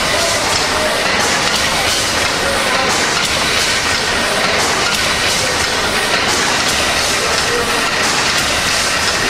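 Steam engine running: a steady hiss of steam and the even noise of working machinery.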